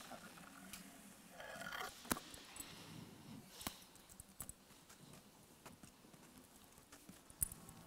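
Faint, scattered footsteps and heel clicks of dance shoes on a wooden parquet floor, with a few sharper clicks standing out, one about two seconds in and one near the end.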